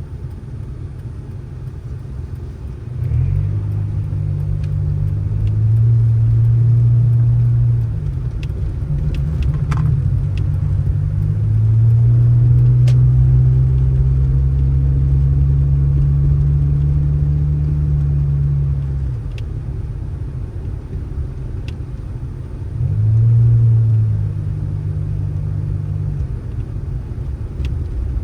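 A motor vehicle engine running with a deep low rumble. It swells louder three times: about three seconds in, for a long stretch from about twelve seconds, and briefly near the end, as if working harder under load. A few faint clicks sound over it.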